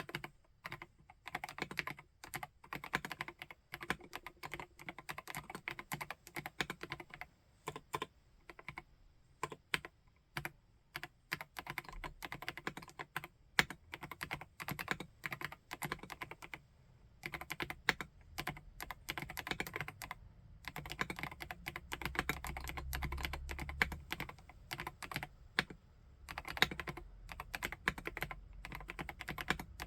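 Typing on a PK x BIOI Command 65 custom mechanical keyboard: runs of rapid keystrokes in bursts, broken by short pauses.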